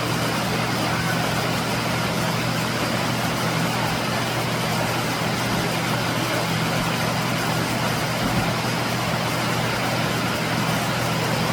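Waterfall rushing steadily, an even noise of falling water with a low steady rumble under it.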